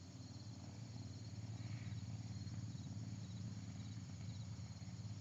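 Faint insects chirping in a rapid pulsing trill, over a low steady rumble.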